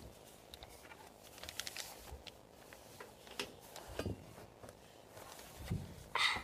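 Faint handling noise of a phone being moved about: scattered soft clicks, rustles and a couple of low thumps, with a short hiss near the end.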